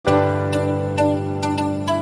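Soft intro music: a gentle melody of plucked notes over sustained chords.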